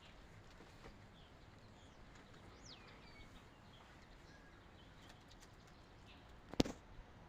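A bird calls faintly over a steady low hiss: one quick downward-gliding call about two and a half seconds in, and a few fainter chirps. A single sharp knock comes near the end and is the loudest sound.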